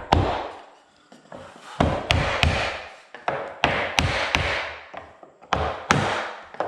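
Hammer knocking on a wooden block held against crown molding, tapping the piece up into place: about ten sharp wooden knocks in clusters of two or three.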